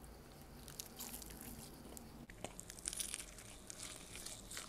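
Biting into and chewing crispy fried chicken close to the microphone: the crunchy breading crackles in quick clusters, loudest about three seconds in.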